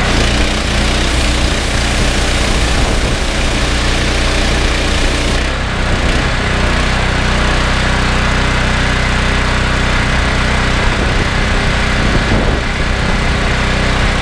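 Loncin G420 single-cylinder petrol engine running steadily, driving a belt-driven pressure washer pump, with the hiss of the high-pressure water spray over it.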